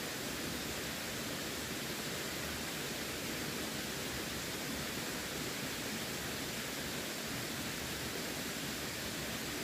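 Running water making a steady, even rushing noise, with no splashes or changes in level.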